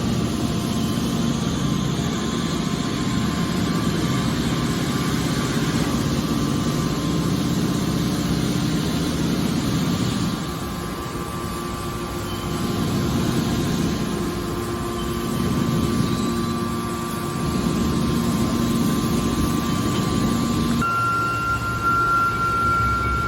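Hydraulic scrap metal baler running: a steady machine drone from its hydraulic pump and motor. The drone eases about ten seconds in, and its note changes suddenly near the end.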